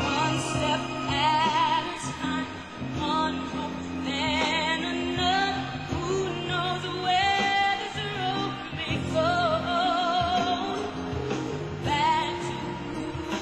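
A woman singing a slow R&B ballad, with wavering runs and vibrato on held notes, over sustained instrumental chords.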